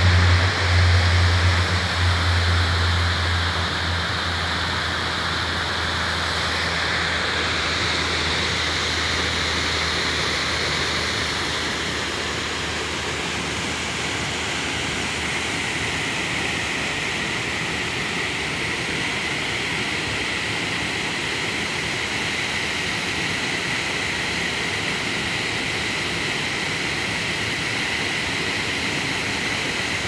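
Waterfall pouring into a pool: a steady rush of falling water. At the start a low vehicle engine hum is heard, fading away over the first several seconds.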